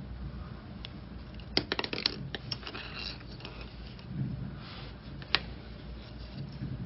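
Hands handling a plastic tatting shuttle and thread, making small clicks and rustles: a quick cluster of clicks about a second and a half in and a single sharp click past five seconds.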